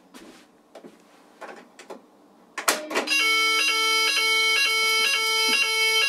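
A sharp clack as a Notifier NBG-10 fire alarm pull station is pulled, and about half a second later a Banshee fire alarm sounder starts up with the French fire alarm tone: a loud, repeating pulsed tone with short regular breaks.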